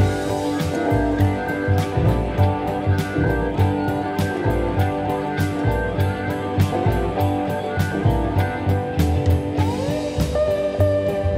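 Blues-style background music led by guitar over a steady drum beat and bass, with a note sliding upward in pitch near the end.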